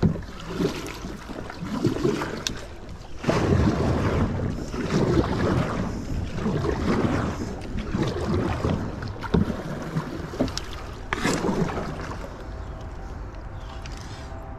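Kayak paddle strokes dipping and splashing in the water, growing louder about three seconds in, with wind noise on the microphone.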